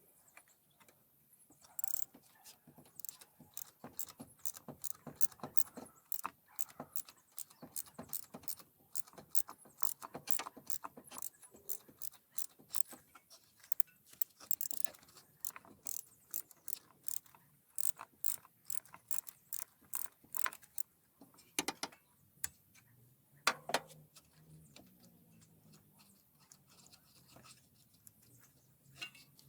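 Light metallic clicks from hand-tool work on an engine, two or three a second for most of the stretch, then a few separate louder clicks near the end.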